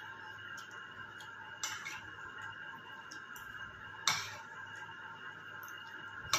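A spoon clinking against crockery three times, each a sharp click with a brief ring, the loudest about four seconds in, over a steady high hum.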